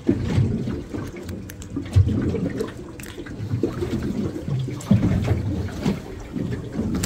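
Water lapping and slapping against a small boat's hull, with a few short knocks.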